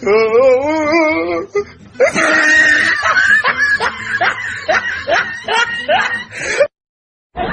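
Comic sound effects: a wobbling, warbling tone for about a second and a half, then a high-pitched, cartoonish snickering laugh in quick repeated giggles that cuts off suddenly near the end.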